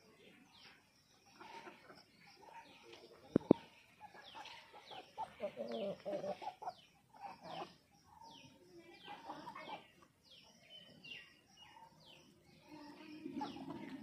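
Aseel chickens clucking in a yard, with short high chirps repeating throughout and a single sharp knock about three and a half seconds in.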